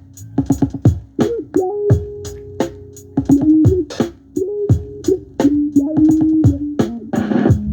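Mid-tempo R&B groove: a programmed drum beat with about four sharp ticks a second under a pitched melodic line that slides between held notes.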